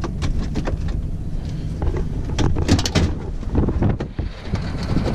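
A pickup's door being opened and someone getting out, heard as a string of clicks, knocks and rattles over a low rumble, with some wind on the microphone.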